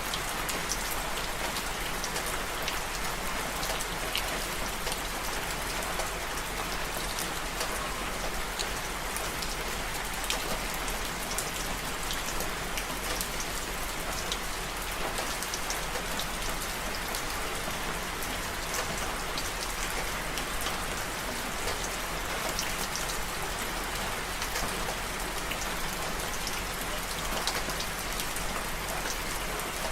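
Steady rain falling, an even hiss with many separate drop hits ticking through it.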